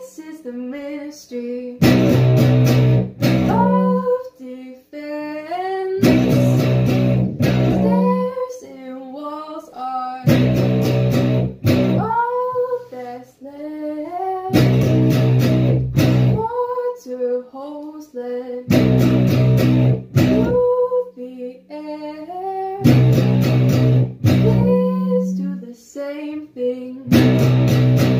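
Guitar strummed in slow chords, a ringing chord about every four seconds, with a woman singing a slow melody over it.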